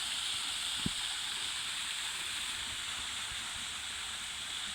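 Large artificial rock waterfall, about four metres high, pouring into a pond: a steady, even rush of falling water. A brief low thump sounds about a second in.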